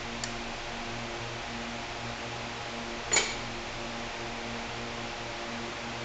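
One sharp metallic clink about three seconds in, with a short ring: a metal tool or engine part knocked or set down on metal. A low hum that swells and fades slowly runs underneath.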